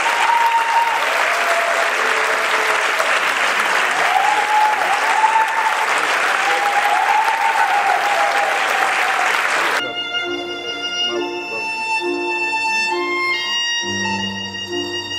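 Audience applause, cut off suddenly about ten seconds in by music: a violin playing long held notes over a steady pulsing accompaniment.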